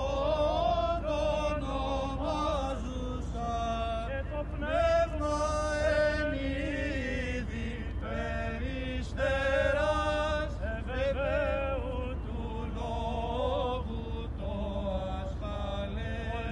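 Orthodox clergy's male voices singing Byzantine chant, unaccompanied, in a slow, bending melodic line over a steady low rumble.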